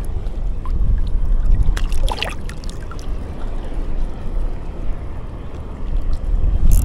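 Wind buffeting an action camera's microphone over lapping water: a steady, uneven low rumble with no speech. A brief sharper sound about two seconds in and a short hiss near the end.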